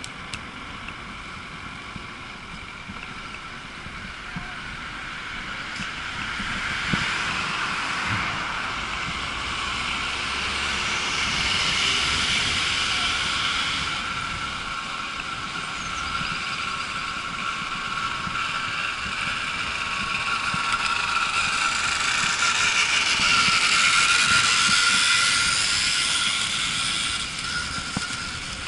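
E-bike riding along a town street: a steady tyre-on-tarmac rush with a thin, steady whine. It swells louder twice, around the middle and again toward the end.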